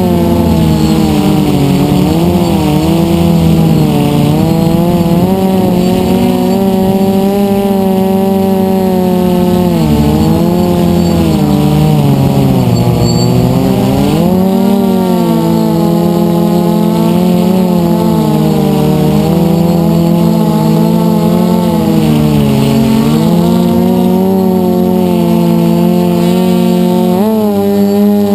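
Four brushless motors and propellers of a DJI F450 quadcopter humming loudly, heard from a camera mounted on the frame. The pitch dips and recovers several times as the throttle changes, with a quick rise near the end.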